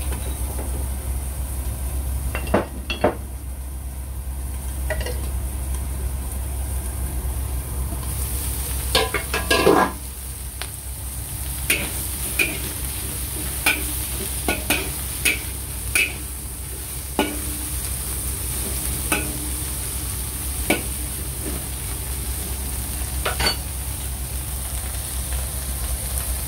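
Shrimp frying in a wok over a gas burner: a steady burner rush with sizzling, broken by sharp metal clicks and knocks against the wok as the shrimp are stirred. The knocks come in a dense cluster about ten seconds in, then one every second or so.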